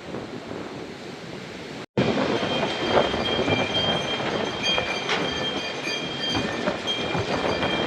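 Thunderstorm wind and heavy rain, a steady rushing noise. About two seconds in it breaks off for an instant, then comes back louder with scattered sharp knocks and a few steady high whistling tones.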